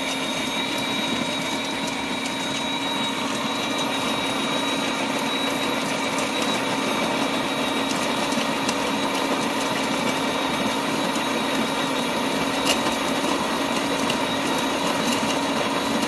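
Shardor BD-CG015 electric burr coffee grinder running steadily through a timed 17-second grind of coffee beans at a fine setting: a constant motor whine with the burrs grinding.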